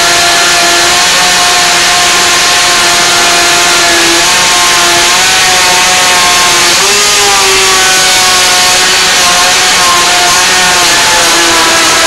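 Waring Margarita Madness blender's motor running at speed, churning a thick frozen mix. Its whine wavers in pitch, dipping and recovering a few times as the load on the blades shifts.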